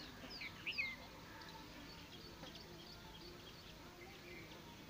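Small birds chirping: a few quick, falling chirps in the first second, then fainter scattered calls.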